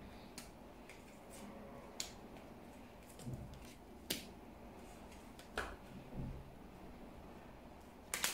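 Oracle cards being handled: drawn from the deck and laid on a velvet cloth, with a few short, sharp snaps and soft low thumps, the loudest snap about four seconds in.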